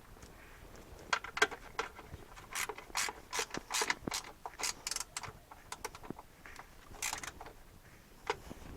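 Ratchet spanner clicking in short, irregular runs of sharp clicks as fixings are done up on the refitted windscreen washer bottle.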